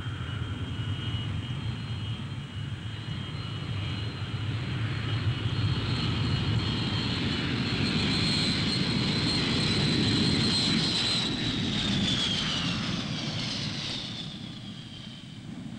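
Four-engine Boeing 707 jet airliner landing and passing close. A steady high jet whine rides over a low engine rumble and grows to its loudest about ten seconds in, then the whine falls in pitch and fades as the aircraft goes by.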